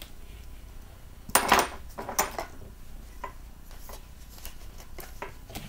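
A tactical pen being set down and items handled in the unboxing carton: a loud clatter a little over a second in, a sharper knock about two seconds in, then scattered light clicks and taps.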